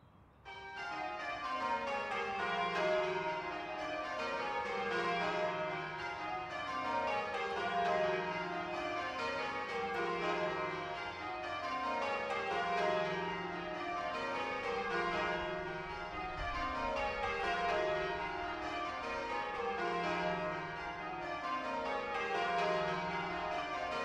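A ring of church bells being rung in changes, the bells striking one after another in rows that step down in pitch, row after row without a break. The ringing starts about half a second in.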